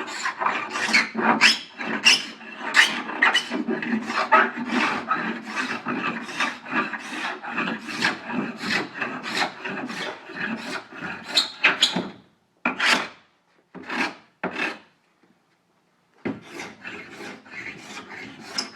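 Hook-blade hand scraper being drawn over a hickory board in quick repeated strokes, about two a second, shaving the hard wood. About twelve seconds in the strokes thin out to a few single pulls and stop briefly, then resume near the end.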